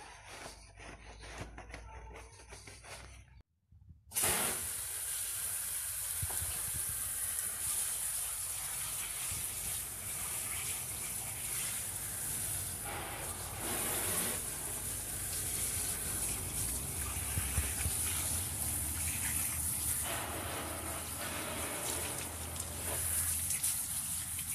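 Quiet brush scrubbing on a foamy wheel rim, then, after a brief break about three and a half seconds in, a steady spray of water rinsing the cleaner off the wheel.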